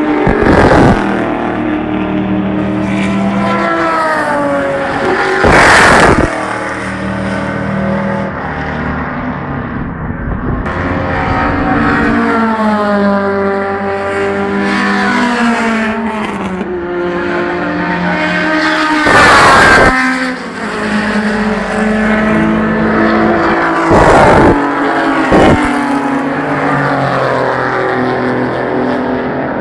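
Historic race cars' engines running on the circuit, rising and falling in pitch as they rev through the gears and pass by. Several short, very loud rushes of noise cut in over them.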